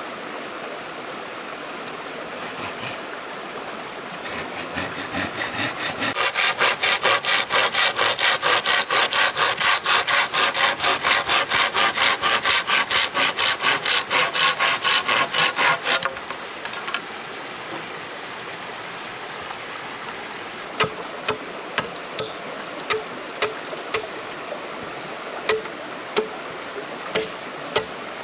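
Hand saw cutting wood in fast, even strokes, about four a second, for about ten seconds. Afterwards come a scattering of sharp, irregular knocks.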